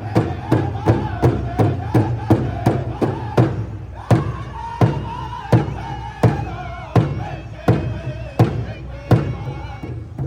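Powwow drum and singers: a large hand drum struck in a steady beat under a group singing in high, sustained voices. About four seconds in, the beat slows to about half its pace.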